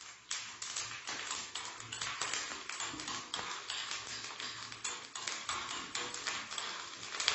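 Mustard seeds spluttering in hot coconut oil with urad dal frying: a fast, irregular crackle of sharp little pops. This is the tempering stage, the seeds bursting once the oil is hot enough.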